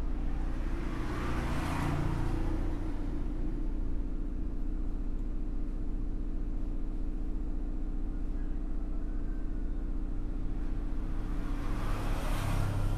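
Steady electric blower hum, with two brief swells of rushing air, about a second in and again near the end.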